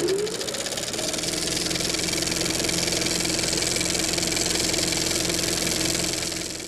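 A motor-driven machine spinning up, its whine rising in pitch over the first second, then running steadily with a fast, even rattle over a hum and hiss, fading out at the end.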